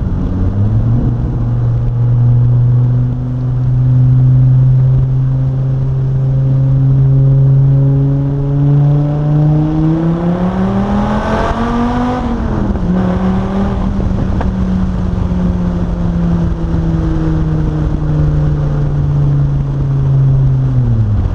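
2006 Dodge Viper SRT-10's 8.3-litre V10 engine under way. It holds a steady cruise at first, then about halfway through revs up hard under acceleration and drops sharply at an upshift. After that it settles and falls slowly as the car eases off, with another drop in revs at the very end.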